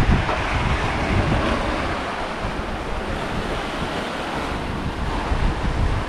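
Sea surf washing steadily over rocks, with wind gusting on the microphone as a low rumble, strongest near the start and again near the end.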